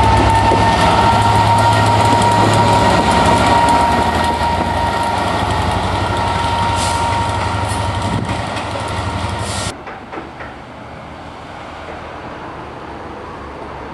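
Class 67 diesel locomotive running past with its coaches: a deep engine hum with a steady high whine over it and wheels clicking over rail joints, fading as it moves away. About ten seconds in it gives way abruptly to a much quieter background, with faint clicks from a diesel unit approaching in the distance.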